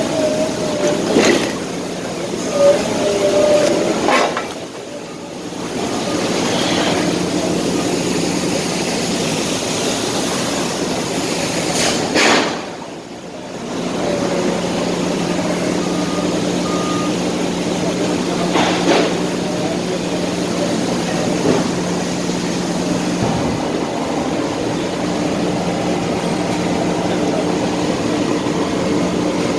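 Steady mechanical hum of running heavy machinery, with a few sharp knocks spread through.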